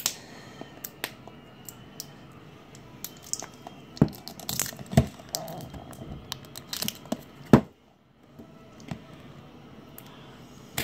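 Plastic wrapping crackling and tearing as it is picked off a small plastic toy capsule by hand: scattered clicks and crinkles, with a few louder snaps about four, five and seven and a half seconds in.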